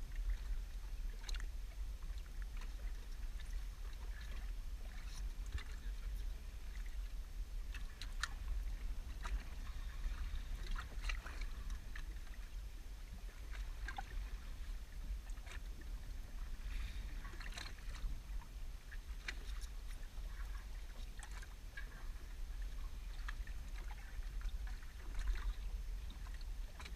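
Small waves lapping and slapping irregularly against the hull of a drifting inflatable boat, over a steady low rumble.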